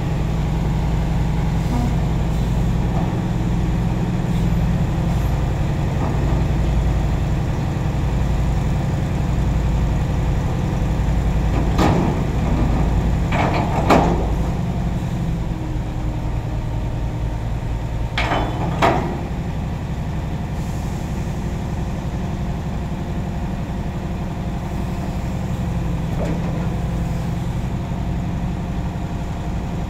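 Heavy diesel engine idling steadily. Around the middle come a few short, sharp noises, in two close pairs.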